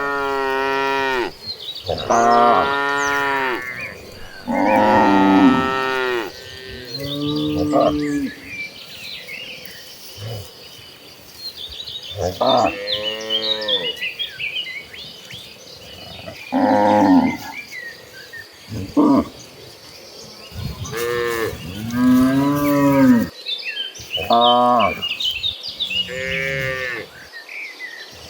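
Several cattle in a herd mooing in turn: about a dozen long calls, each one to two seconds, rising and falling in pitch, some overlapping, with short pauses between.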